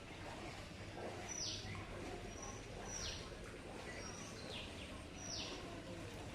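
A bird calling repeatedly, each call a short high note followed by a quick falling sweep, over a faint steady background hum.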